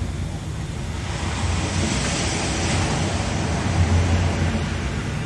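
Ocean-surf ambience: a steady rushing wash of waves that swells about two seconds in, over a constant low rumble.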